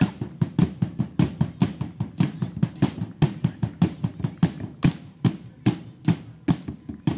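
Philippine indigenous percussion, drums and bossed gongs, played in a fast, steady beat of sharp strikes, about four a second with stronger and weaker beats alternating.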